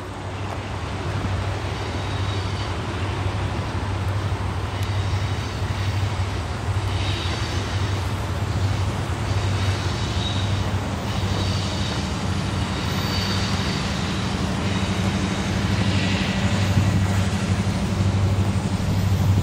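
Diesel freight locomotives approaching, a steady low engine drone with a deep hum that grows fuller in the second half as the train draws nearer.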